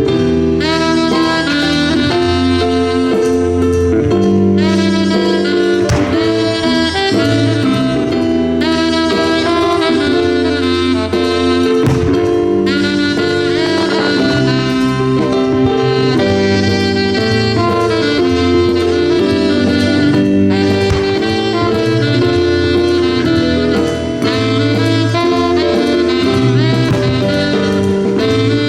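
Live jazz band playing a flowing melody over a walking bass, with a couple of sharp cracks about six and twelve seconds in.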